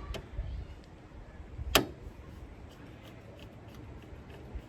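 Scattered small clicks and one sharp, loud click about two seconds in, from tools and parts being handled, over a low rumble.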